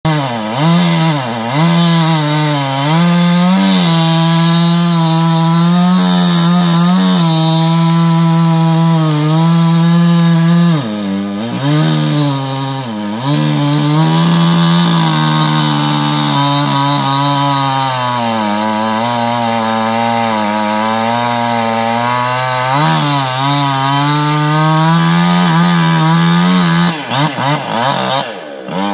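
Two-stroke chainsaw running at high revs while cutting into a big pin oak, its pitch sagging several times as the chain bites into the wood and then recovering. Near the end the engine note breaks up and falls away.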